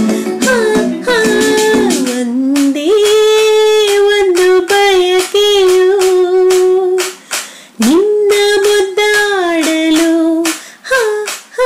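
Woman singing a Kannada film song solo in long held notes with vibrato, sliding between pitches, over a steady clicking beat. The voice breaks off briefly about seven seconds in and again near the end.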